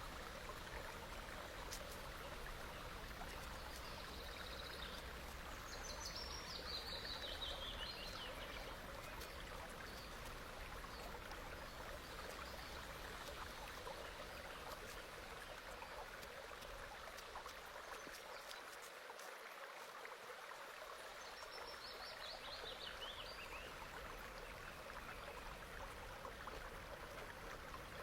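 Steady rushing of running water, with a short trill of high notes falling in pitch heard twice, about six seconds in and again near the end.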